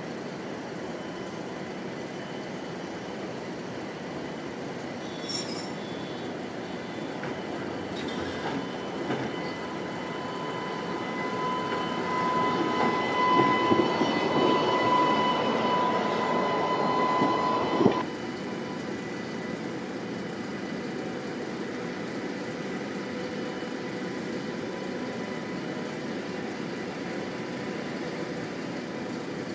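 Alstom Citadis Compact tram passing close on its rails, its running noise growing louder with a steady high whine over it. About two-thirds of the way through the sound drops suddenly to a quieter, even hum.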